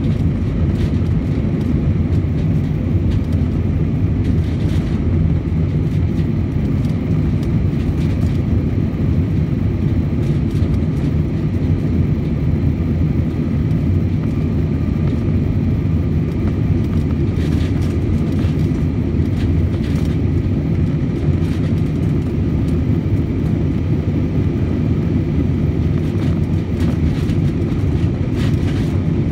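Airbus A320 cabin noise during the climb after takeoff: jet engines and airflow making a steady low rumble, with a faint steady whine above it.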